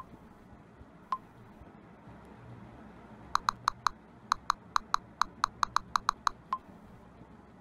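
Smartphone touch-keyboard tap sounds: a couple of separate short clicks, then a quick, uneven run of about fifteen key clicks over three seconds as a message is typed, and one last click.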